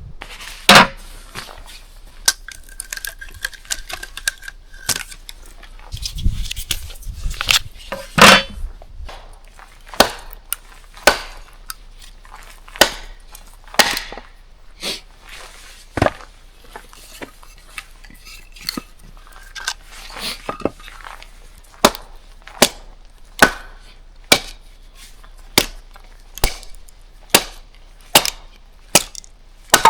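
Camp gear being handled: irregular clattering and knocking, with a brief squeak near the start. In the last third it turns to a steady run of sharp strikes, a little over one a second.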